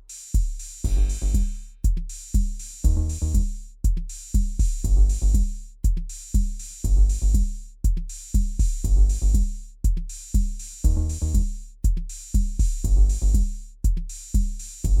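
Instrumental rock music: a repeating drum groove with kick drum, cymbals and bass notes, the same pattern coming round about every two seconds, with no vocals.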